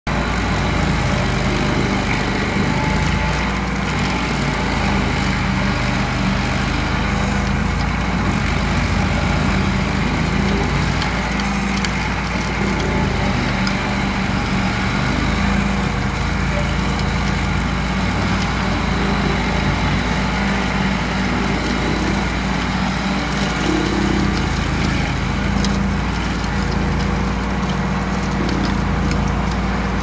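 Remote-controlled stump grinder's engine running steadily at working speed as its cutting wheel grinds down a tree stump, a constant hum under a rough, even grinding noise.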